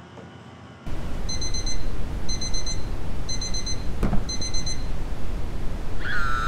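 Digital alarm clock beeping in rapid groups of high beeps, about one group a second, four times, over a loud rushing background noise. A single knock comes near the middle, and a short falling tone sounds just before the end.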